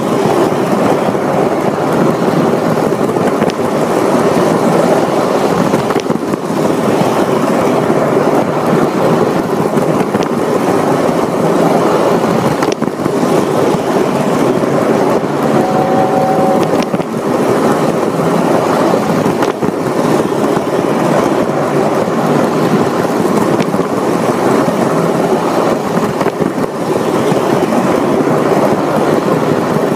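Lionel Polar Express toy train running on its track, heard from a camera riding aboard: a steady loud rumble of the motor and wheels. A brief steady tone sounds for about a second about halfway through.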